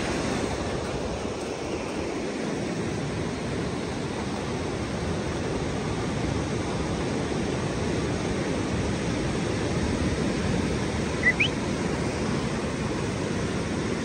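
Pacific Ocean surf washing in as a steady, even rush of breaking waves. About eleven seconds in comes a brief high rising chirp.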